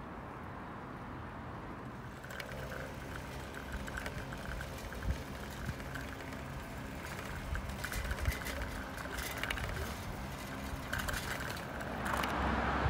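City street at night: a steady hum of distant traffic with scattered ticks and knocks. About twelve seconds in it gives way to a louder, closer rush of road traffic.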